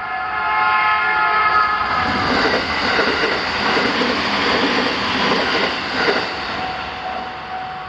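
A JR Joban Line train passes over the level crossing, its wheels clattering rhythmically over the rail joints for about four seconds before the noise fades. The crossing's warning alarm keeps sounding under it.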